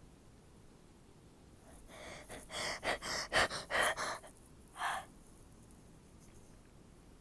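A person's sharp, gasping in-breaths building up, then a quick run of short, stifled sneezes held back behind a closed mouth, from about two to four seconds in, with one more a little under a second later.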